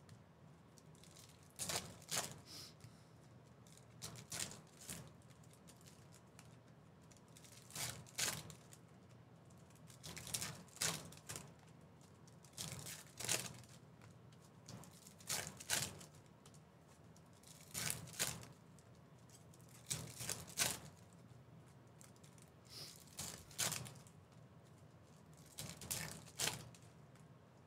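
Trading-card pack wrappers crinkling and tearing open and cards being handled, in short sharp rustles every two to three seconds, often two close together.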